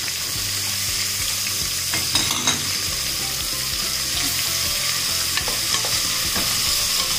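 Sliced onions sizzling in hot coconut oil in a pressure cooker while being stirred, with a steady hiss and a few clicks of the spoon against the pot.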